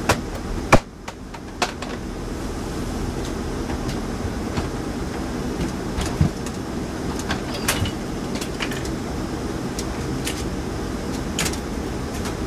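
Steady low mechanical rumble with scattered sharp clicks and knocks; the loudest knock comes about a second in.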